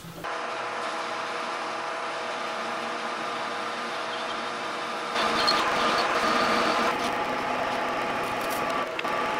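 Metal lathe running with a steady whine of its gearing while the tool cuts a metal ring held in a six-jaw chuck. The cutting noise gets louder about five seconds in.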